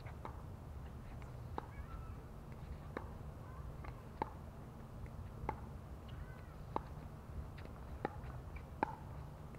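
Pickleball rally: paddles striking the hollow plastic ball with sharp pocks, eight hits about a second and a quarter apart, over a steady low rumble.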